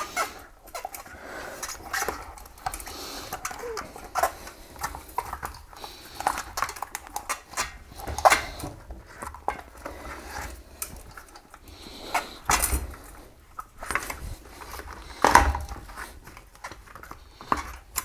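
Irregular metallic clinks and rattles of a bicycle rear wheel, chain and cassette being handled, with a few heavier knocks about 8, 12 and 15 seconds in.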